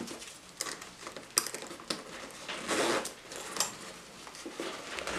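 Laces of a Fear of God Military sneaker being pulled and loosened by hand: irregular short rustles and light clicks as the laces slide through the eyelets and the upper is flexed, with one longer rustle a little before three seconds in.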